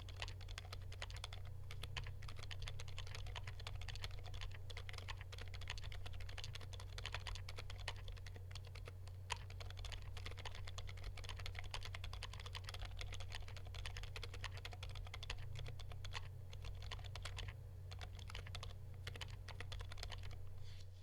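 Continuous fast typing on a mechanical keyboard fitted with Gazzew Boba U4 silent tactile switches, a dense run of soft, muted keystrokes. A steady low hum runs underneath.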